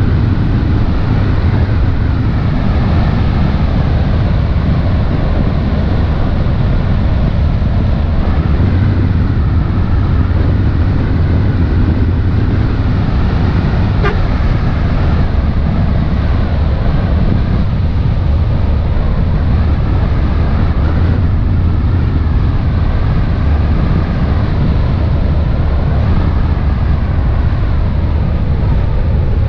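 Motor launch's engines running steadily under way, a constant low drone with an even rushing noise over it.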